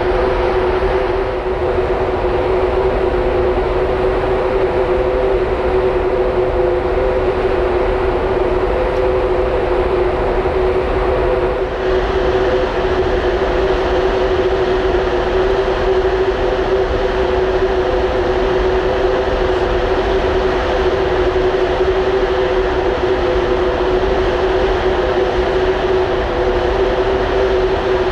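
Onboard machinery of the ferry Mega Smeralda heard from the open deck under way: a loud, steady drone with two held humming tones over an even rumble and hiss.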